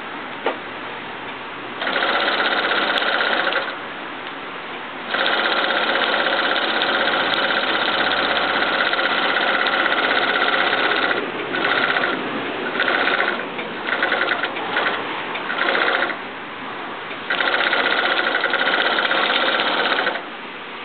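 Vintage Union Special three-needle flat-bed industrial sewing machine with top-cover stitching, sewing a fabric band in runs: a short run of about two seconds, a long run of about six seconds, a string of short stop-start bursts, then a final run of about three seconds. Between runs a quieter steady whir carries on.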